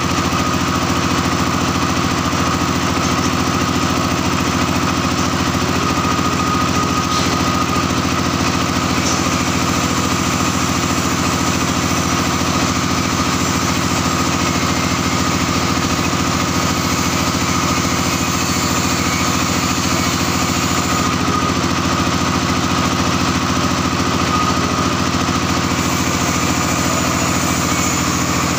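Small single-cylinder engine of a plastering machine running steadily at an even speed.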